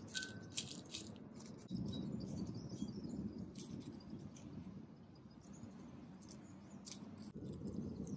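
Kitchen scissors snipping dried red chilies into a bowl: a scattered run of sharp snips. Near the end, hot water is poured from a kettle over the cut chilies to soak them.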